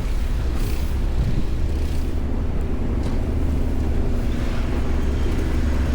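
Steady low rumble of city traffic with a faint engine hum, mixed with wind on the microphone.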